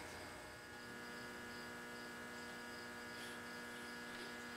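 Steady electrical hum, with a few faint, short scrapes of a hand chisel paring the teak of a knife handle about three and four seconds in.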